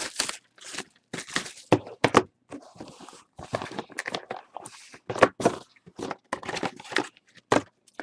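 Cardboard trading-card box being opened and its small boxed card packs lifted out and stacked on a table: irregular rustling and scraping with several light knocks.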